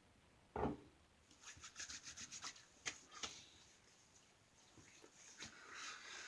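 Hands rubbing and patting aftershave onto freshly shaved skin, with scattered faint rubbing and small clicks, after a single soft knock about half a second in.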